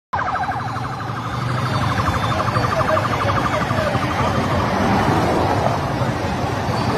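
Motorcade escort siren sounding with a fast pulsing warble, fading after about four seconds into a steady rush of vehicle and wind noise as the convoy cars approach.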